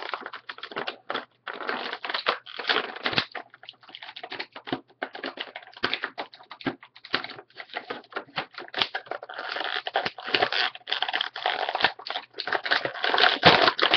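Plastic tray and cardboard packaging of a boxed action figure being handled as the figure is pulled out: irregular crinkling, rustling and clicking.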